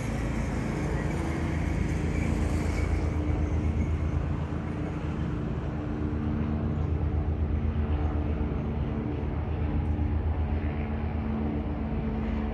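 An engine running steadily with a low, fast throb.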